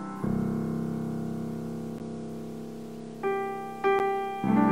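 Yamaha grand piano being played. A low chord is struck just after the start and rings, fading, for about three seconds; then three more chords follow in quick succession near the end.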